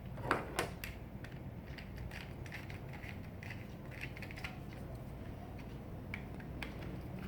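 Scattered light plastic clicks and ticks as a toy excavator's track and screws are fitted and turned with a small screwdriver, a couple of sharper clicks in the first second.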